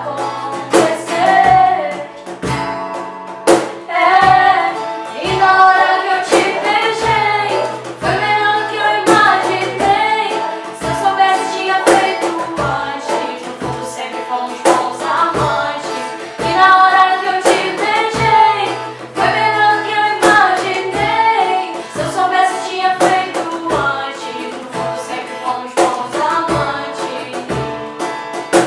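Two women singing a sertanejo song in Portuguese together, accompanied by a strummed acoustic guitar keeping a steady rhythm.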